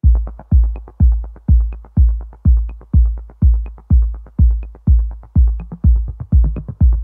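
Electronic background music with a heavy kick drum beating about twice a second, starting abruptly.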